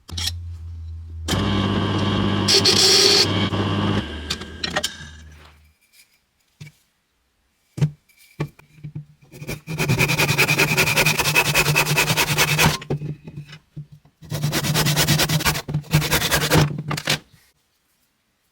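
Workshop tool sounds: a low hum with scraping in the first few seconds, then a small electric power tool running in two bursts of a few seconds each, with a steady high whine.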